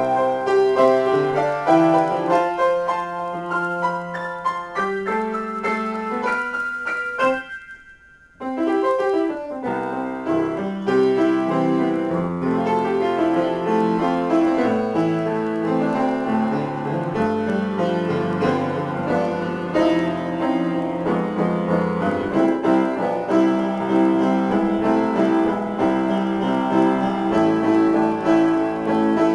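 Solo upright piano played in an improvised piece with many overlapping notes. About a quarter of the way through, the playing almost stops for about a second, then resumes fuller.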